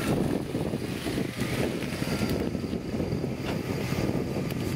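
Wind buffeting the microphone in a shifting low rumble, with a car engine idling faintly underneath.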